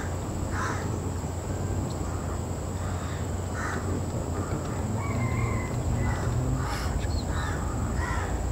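Birds calling: short calls repeat about once a second, with a few thin whistled notes around the middle, over a steady low hum.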